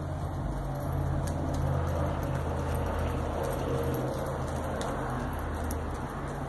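Riding horse's tack jingling as it is ridden past at a walk on soft sand footing, over a steady low hum.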